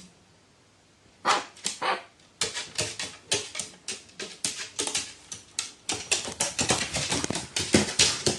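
Dogs barking in quick short bursts, starting about a second in and coming faster and denser, several barks a second.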